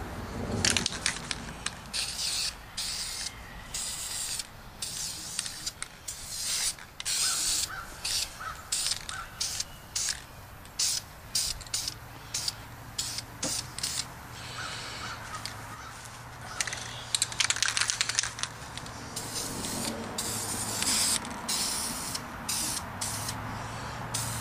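Aerosol can of Krylon camouflage spray paint hissing in short bursts, one after another, as a first coat goes on. A few of the bursts run longer, around two-thirds of the way through.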